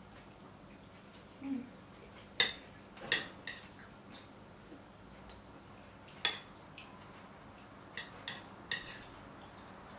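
Metal fork clinking against a ceramic bowl while eating: about seven sharp clinks with a short ring, in two clusters, the loudest about two and a half seconds in.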